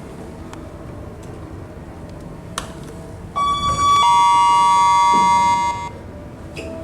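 Lift hall-lantern Delta chime giving a two-tone ding-dong: a higher tone, then a lower one about half a second later, both held for about two seconds before stopping together, announcing the lift car's arrival at a floor. A single click sounds about a second before the chime.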